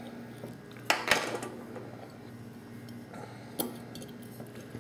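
Glass chimney of an oil lamp clinking against its metal burner as the lamp is lit and the chimney fitted: two sharp clinks about a second in and another at about three and a half seconds.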